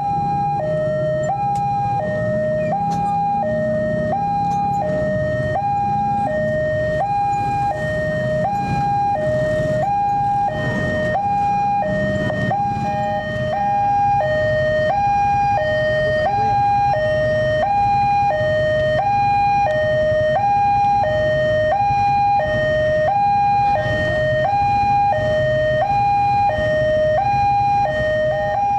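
Railway level-crossing warning alarm sounding a steady two-tone high-low chime, about one cycle a second, over a low rumble of road traffic. It means the crossing is closed and a train is approaching.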